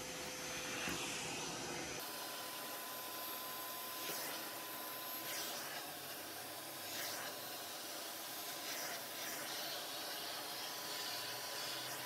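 Karcher WD 3 wet-and-dry vacuum cleaner running steadily, its floor nozzle sucking debris off artificial grass, with a few short rasps as the nozzle sweeps the turf.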